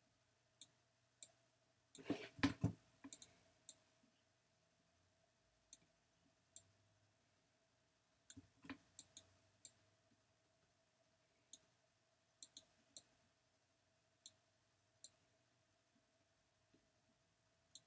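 Scattered computer mouse clicks, single and in quick pairs, while tools are picked in drawing software. There is a louder short clatter of knocks about two seconds in and another quick run of clicks around eight to nine seconds, over a faint steady hum.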